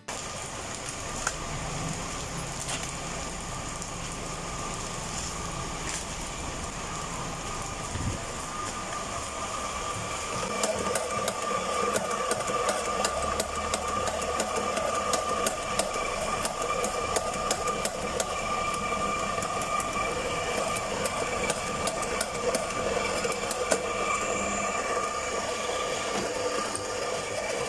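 Electric coffee grinder running steadily as it grinds into an espresso portafilter, getting louder about ten seconds in.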